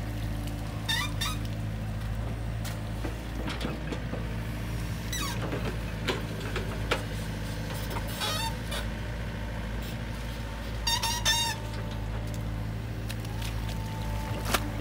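Hitachi mini excavator's diesel engine running steadily as the arm works in wet mud. Several short high calls break in over the engine, about a second in, near the middle and near the end.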